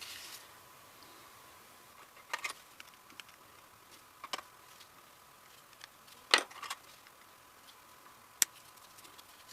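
Small metal parts of a Ramset 122MD powder-actuated tool clicking and clinking as they are handled during disassembly: a few scattered taps, the loudest about two-thirds through, and a sharp tick near the end.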